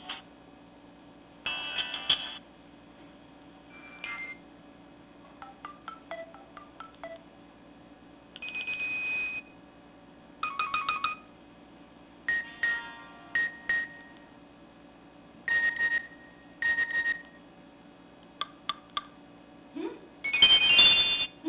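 Nokia E5 ringtones and alert tones played one after another through a Nokia 130's small phone speaker: a string of short electronic melodies, each a second or less, with brief pauses between them, the loudest one near the end.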